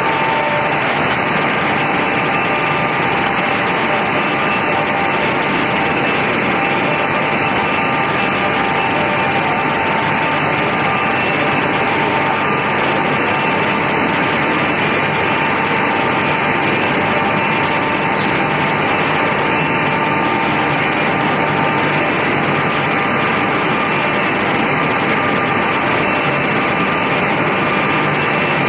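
Homag KL 26 Optimat double-sided edgebanding machine running: a steady, even machine noise with a few faint steady tones.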